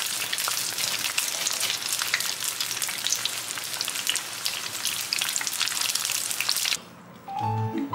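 Battered stuffed cucumber chili peppers deep-frying in hot oil: a dense, steady crackling sizzle that cuts off just before the end. Light mallet-percussion music begins right after.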